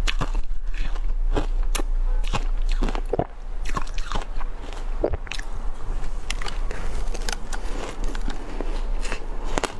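Shaved ice dusted with matcha powder being bitten and chewed in the mouth: a dense, irregular run of sharp crunches and crackles.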